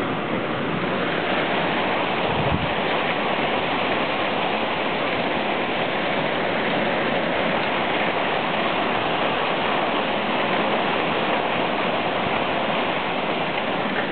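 Heavy rain pouring down in a storm, a loud, steady hiss. A brief low thump comes about two and a half seconds in.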